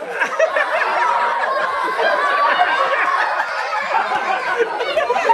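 A group of people laughing and chattering over one another.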